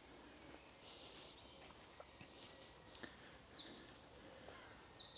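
Small songbird singing: high, rapid runs of repeated notes, coming in about two seconds in and going on over a faint background of outdoor noise.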